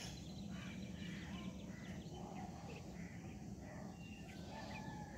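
Faint outdoor ambience: distant birds chirping and calling, with a low steady rumble underneath.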